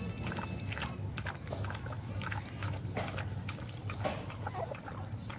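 Mother dog lapping and slurping soupy food from a bowl, an irregular run of quick wet clicks over a low steady hum.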